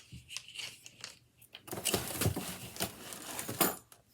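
Plastic clip hangers being handled and counted out of their packaging: a few light clicks, then about two seconds of crinkling and rustling with sharp clacks in it.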